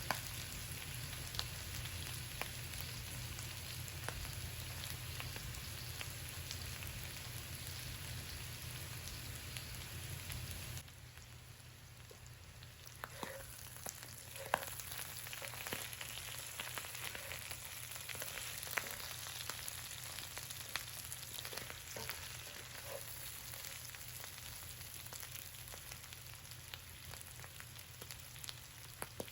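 Food frying in a pan on the stove, a steady sizzle with small crackles and pops. A low hum under it stops about eleven seconds in, leaving the sizzle quieter with the pops more distinct.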